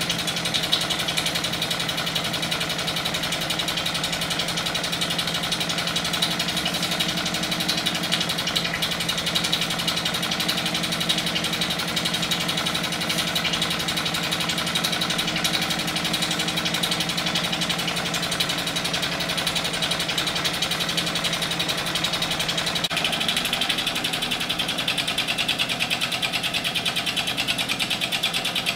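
1958 Mamod SE2 toy steam engine running steadily, a fast, even chuffing and clatter with a hiss of steam. Some way past the middle the low hum fades and the hiss gets brighter.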